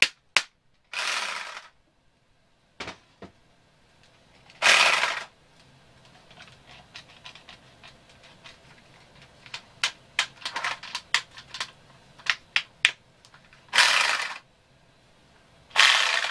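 Cordless power drill converted to run on a supercapacitor bank, its motor running in four short bursts of well under a second each. Sharp clicks and knocks of handling the drill fall between the bursts, most of them in a run about two thirds of the way through.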